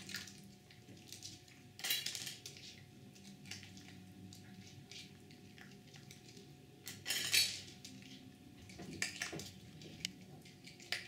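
Food bowls clattering on a hard floor as a small dog eats from a stainless steel bowl and noses a plastic bowl about: two loud clatters, about two seconds in and about seven seconds in, with lighter clinks between.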